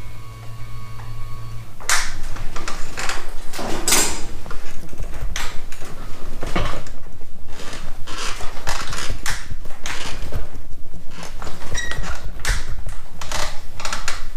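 A motor hums steadily for about two seconds. Then irregular metal knocks and rattles follow, many sharp clanks as the wheelchair and the home-built snow plow rig are lined up and connected.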